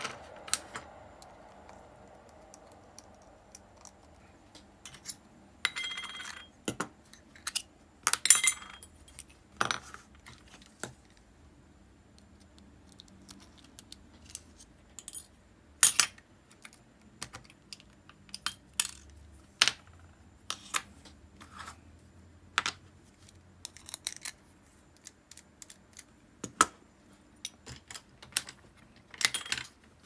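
Irregular clicks and light metallic clinks from an Abu Garcia Ambassadeur 2500C baitcasting reel and its small metal parts being handled, with two brief ringing clinks about six and eight seconds in.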